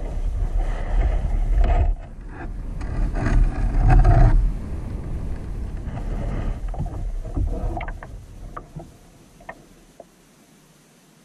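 Uneven low rumbling noise on the microphone as the kayak drifts, dying away after about eight seconds. A few light ticks follow near the end.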